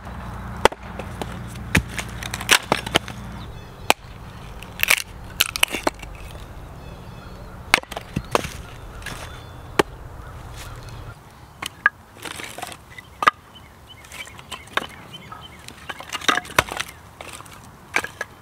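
Hatchet chopping and splitting kindling on a wooden chopping stump, with a piece of wood knocked against the hatchet to drive it through. Irregular sharp knocks of steel and wood on wood, with cracks as the pieces split.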